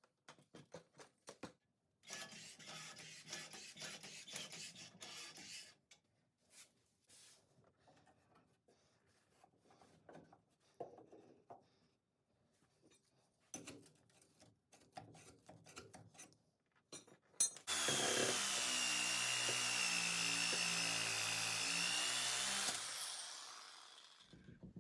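Clicks and a few seconds of scraping and rustling, then a Sawzall reciprocating saw starts about two-thirds of the way in. It runs steadily for about five seconds and winds down with falling pitch. The saw is being used to cut out a rubber body-mount bushing.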